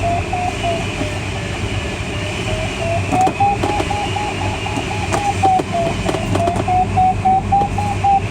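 Glider's audio variometer beeping in quick short pulses, about four a second, its pitch rising about three seconds in, dipping briefly and rising again: the tone of a glider climbing in lift. Steady airflow rush in the cockpit under it.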